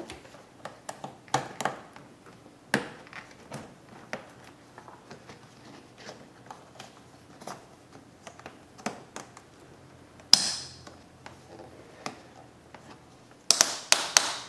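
Scattered light clicks and taps of hands and tools working a rubber air intake tube and its hose clamps back into place on a car engine. A sharp click with a brief metallic ring comes about ten seconds in, and a quick run of louder clicks near the end.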